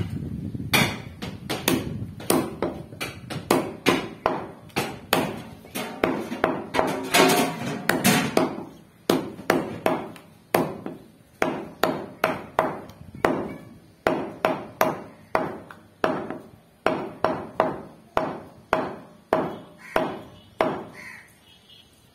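Meat cleaver chopping goat meat on a wooden log chopping block: a steady run of sharp chops, about two a second, that stops near the end.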